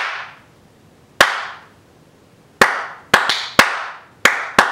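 Single hand claps, about seven, unevenly spaced and coming quicker in the second half, each sharp and followed by a short echo in the room.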